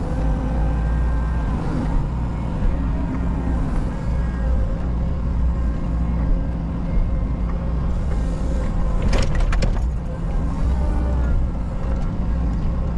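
Menzi Muck M335 walking excavator's engine running steadily, heard from inside the cab. A brief cluster of sharp clicks comes about nine seconds in.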